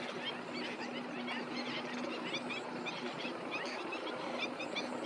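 A flock of birds calling, many short chirps overlapping throughout, over the steady drone of a plowing tractor's engine.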